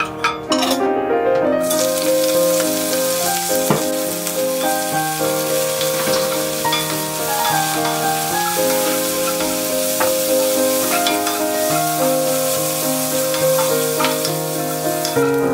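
Seaweed sizzling in hot coconut oil in a cast-iron pot, the hiss starting about a second and a half in as it hits the oil and going on while it is stirred with a wooden spatula. Gentle background music plays along with it.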